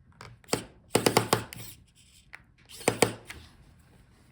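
Sharp clicks and taps of small metal screws and a screwdriver being handled against a laptop's chassis while the battery screws are taken out. There is one click about half a second in, a quick cluster of them around a second in, and another pair near three seconds in.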